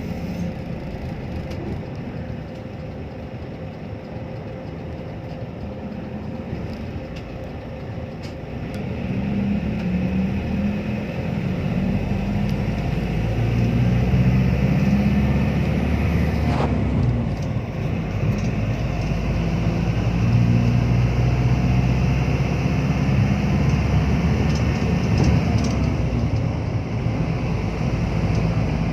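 A vehicle's engine running steadily, growing louder about twelve seconds in.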